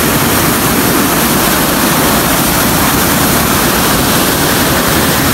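Fast canal water rushing through the sluice gates of a canal headworks, loud and steady.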